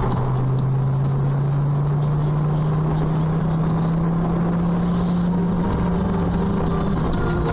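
Vehicle engine running under road noise, its drone rising slowly in pitch for about five seconds, then holding steady.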